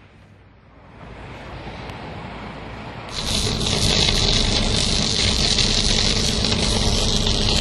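Sustained electrical arc on overhead power equipment: a steady rushing noise that grows from about a second in and jumps louder about three seconds in.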